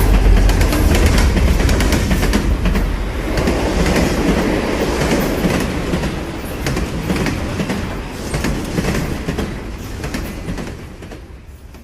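A train rolling along the track, its wheels clicking over the rail joints over a heavy low rumble, fading steadily away toward the end.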